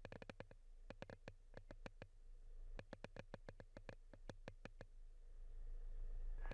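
A quick, irregular series of sharp clicks, fast at first and thinning out after about two seconds, over a steady low hum.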